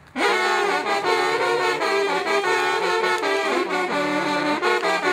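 Coiled brass hunting horn playing a hunting call, a run of quick changing notes that starts just after a brief pause.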